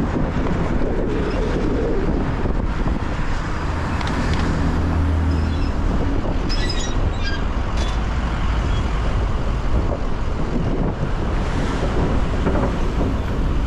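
Steady city street traffic noise in a rainstorm, with wind on the microphone. A vehicle engine's low hum stands out for a couple of seconds about four seconds in.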